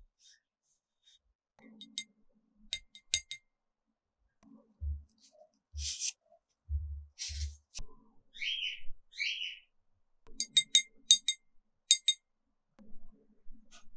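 Small hard taps and clinks on glass, in quick clusters a couple of seconds in and again near the end, with a few soft low knocks and two short scraping swishes in between, as painting tools are handled at the desk.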